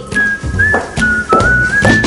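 A whistled tune over jingle music with bass and a drum beat. The whistle is a single pure line that steps up and down in pitch.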